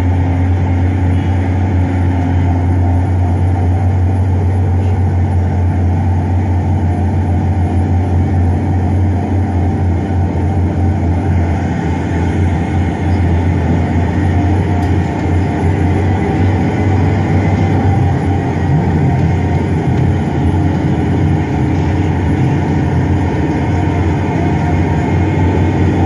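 Heavy diesel dump truck engines running, a steady low rumble with no breaks.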